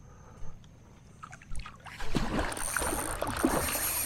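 Water splashing and sloshing at the surface beside a kayak, starting about halfway in and going on in a busy, uneven run.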